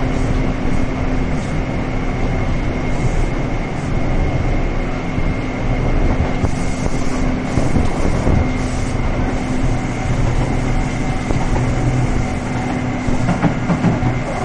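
Taipei Metro train running along surface track, heard from inside the passenger car: a steady rumble of wheels on rail with a steady humming tone over it.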